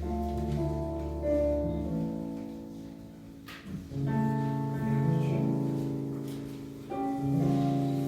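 Electronic keyboard playing a slow hymn in long held chords over a low bass note. New chords come in about a second in, about four seconds in and about seven seconds in, with a brief fade just before the middle.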